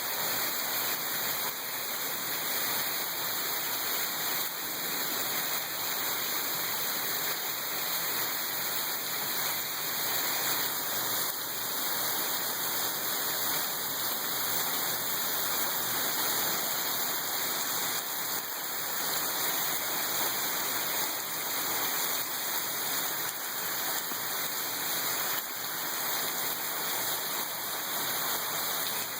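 Heavy rain pouring down steadily, an even, dense hiss with no letup.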